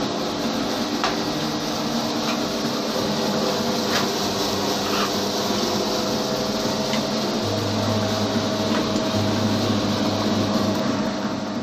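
Homemade dough mixer driven by a Maestro 1/4 hp electric motor, running steadily with a motor hum and faint clicks every second or two; a deeper hum joins about two-thirds of the way through.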